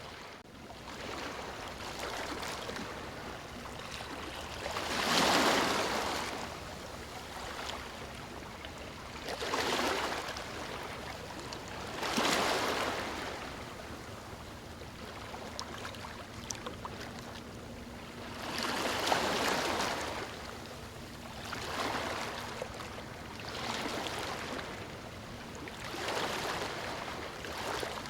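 Ocean waves breaking and washing up a beach, one surge after another every few seconds, the biggest about five seconds in.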